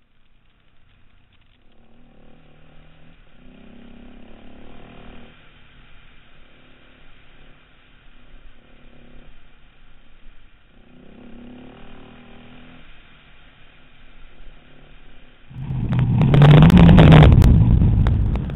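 Dual-sport motorcycle engine heard from the rider's helmet camera on a gravel track, over a steady rushing noise. The engine swells twice as the throttle opens. Near the end, a much louder engine rev rises and falls with clattering, the loudest part.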